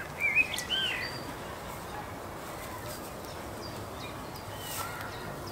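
Small birds twittering, loud and quick in the first second, then only faint scattered chirps over a steady outdoor background.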